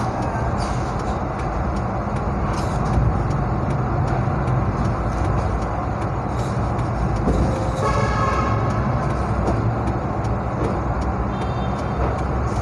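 Steady low vehicle rumble, with a short horn toot about eight seconds in.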